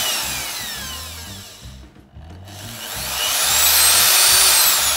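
Grand electric drill motor running unloaded on a test of its newly replaced trigger switch and reverse lever. Its whine falls as it coasts to a stop about two seconds in, then rises as it is switched on again, runs at full speed and begins to wind down near the end.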